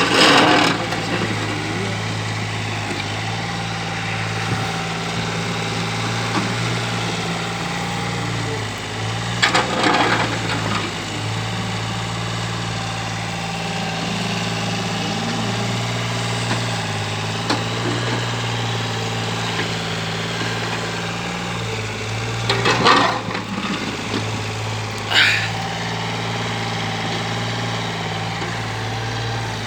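Kobelco SK013 mini excavator's engine running steadily, broken by short louder noisy bursts about 10 seconds in and twice more near the 23 and 25 second marks.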